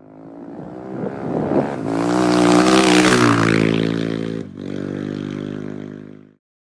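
Motorcycle engine running and revving, swelling to its loudest about two to three seconds in, dipping briefly, then fading out.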